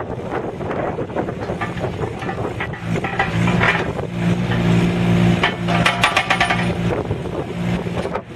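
IHI 15NX2 mini excavator's Yanmar three-cylinder diesel engine running, its steady note growing louder about three seconds in. A quick run of clanks sounds around six seconds in.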